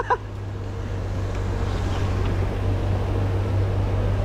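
A steady low hum under an even wash of outdoor noise, swelling slightly in the first second and then holding level.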